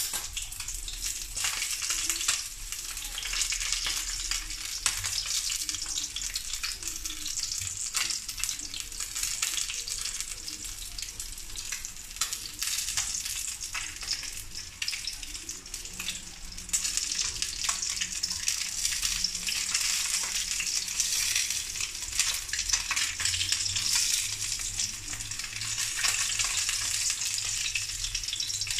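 A threadfin fish fillet frying in hot oil in a pan: a steady sizzle dotted with small crackling pops of spattering oil.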